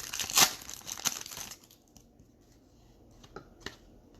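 Foil wrapper of a 2019 Optic baseball card pack being torn open and crinkled for about a second and a half, followed by a couple of light clicks as the cards are handled.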